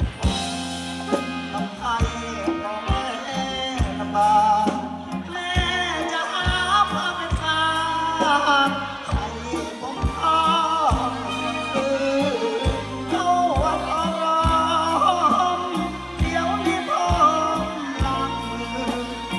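A man singing into a microphone through the stage PA, backed by a live band with electric guitars, bass and drums playing a steady beat.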